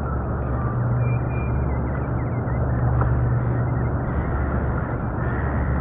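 Small Mercury outboard motor on an inflatable boat running steadily at low speed, a constant low hum with water wash.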